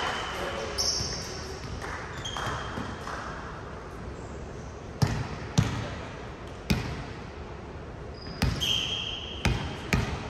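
A ball game on a hard indoor court: a ball struck or bouncing with sharp slaps, half a second to a second and a half apart from about halfway in, with a few brief high sneaker squeaks on the floor.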